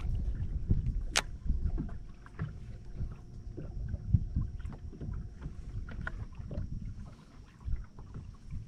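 Small fishing boat on the water: a low rumble of wind on the microphone with scattered light knocks and clicks from handling and gear, one sharp click about a second in, and a faint steady hum.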